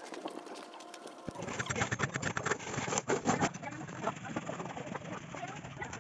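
Masonry trowel scraping and tapping on wet concrete and loose stones, a quick irregular run of clicks and scrapes that starts about a second in.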